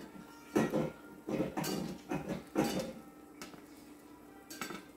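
A slotted metal fish spatula clinking and scraping against a stainless steel frying pan in several short, separate knocks while a flatbread is checked for flipping.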